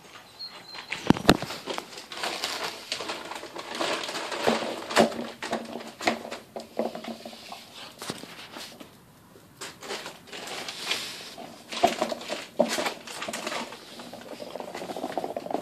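Pit bull puppies playing: claws scrabbling and pattering on a hard floor, a plastic bag and tarp rustling, and irregular clicks and knocks, with a few short puppy growls and yips.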